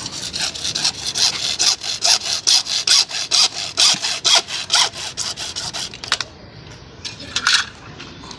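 Hand saw cutting through a CPVC plastic pipe in quick, even back-and-forth strokes, about four a second. The sawing stops about six seconds in, with a few more strokes near the end.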